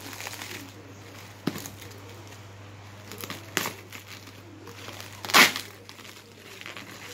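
Thin black plastic wrapping crinkling as it is pulled and torn open by hand, with a few sudden sharp rips, the loudest about five seconds in.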